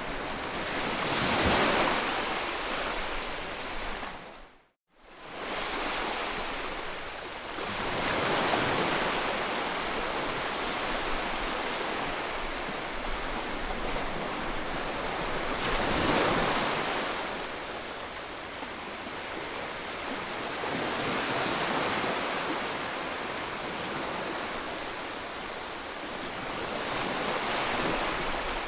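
Ocean waves breaking and washing on the shore, a steady rush that swells in surges every six to eight seconds. The sound cuts out for a moment about five seconds in.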